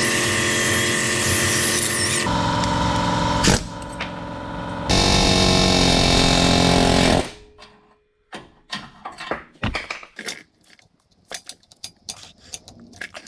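A power tool running steadily in a couple of long trigger pulls, its pitch shifting and easing off briefly before it stops abruptly about seven seconds in. Intermittent clicking of a hand ratchet follows.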